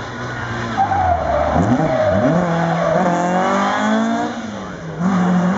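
Rally car engine revving hard, pitch dropping and jumping through gear changes and then climbing as it accelerates away, with tyres skidding through the corner. The car going by is a Mk1 Ford Escort rally car.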